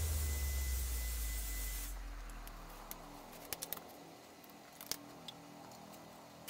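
Electric heat gun blowing with a steady hiss and a thin whine, switched off about two seconds in, its fan motor's hum running down over the next second. Then a few light clicks and taps as the warm PVC sheet is handled.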